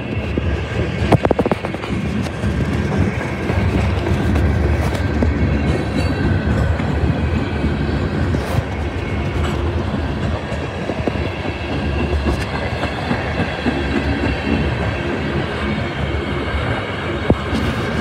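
Freight cars of a mixed freight train rolling past close by: a steady rumble of steel wheels on the rails, with scattered sharp clicks and clanks.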